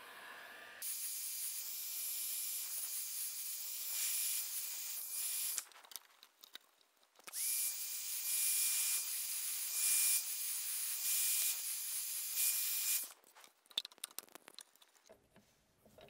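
Heat gun blowing hot air onto the tip of an osage orange bow limb to soften the wood for bending it into a recurve over a form: a steady hiss with a thin, high whine. It switches on about a second in, stops briefly after about five seconds, runs again, then cuts off a few seconds before the end, followed by a few small clicks.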